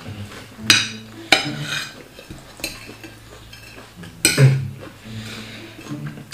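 Eating utensils clinking and scraping against a plate of food: about four sharp clinks spread through, some drawn out into short scrapes.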